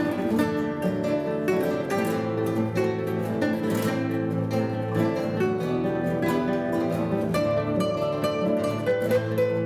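Three acoustic guitars playing a pop song arrangement together, plucked melody over picked chords.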